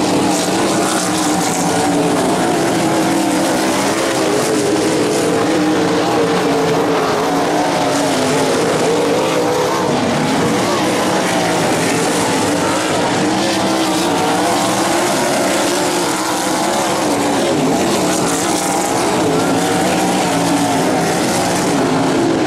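Several racing engines running together in a race, their pitches continually wavering up and down as the vehicles accelerate and lift, with no single sudden event.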